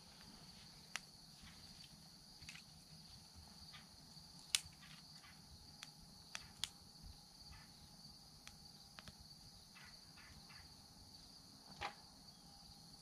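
Small twig fire crackling, with scattered sharp pops, the loudest about halfway through, over a steady high insect chorus.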